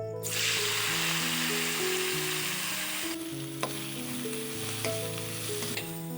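Food sizzling in hot oil in a pan, starting suddenly and loudest for the first three seconds before easing off, with a few sharp clicks of a utensil during stirring.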